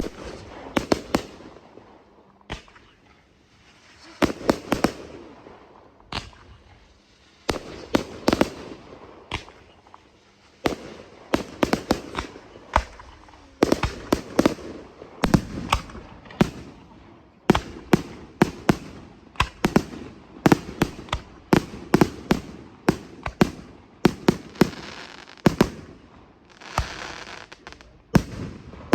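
Firework display with aerial shells of up to 75 mm bursting: dozens of sharp bangs in quick succession, often in tight clusters of two to four, over a continuous hazy rumble, with a brief lull a few seconds in.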